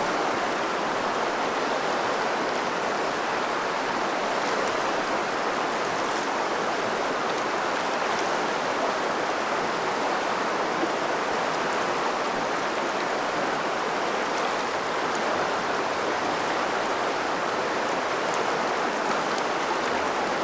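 Steady rush of river water flowing, an even unbroken sound with no change in level.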